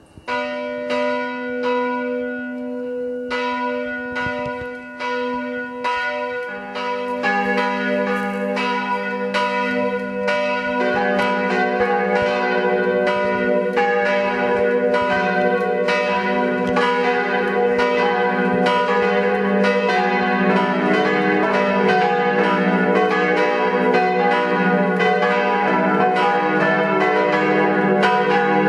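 Swinging bronze church bells starting a four-bell peal tuned e', f-sharp', g-sharp' and b': one bell starts suddenly at the start, a second joins about six seconds in, and the others come in from about eleven seconds on, building to all four ringing together.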